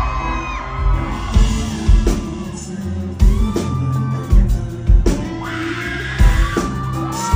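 Live pop music at a concert: a male singer's vocal through the PA over a backing track with deep bass notes and a heavy regular kick-drum beat, heard from the crowd.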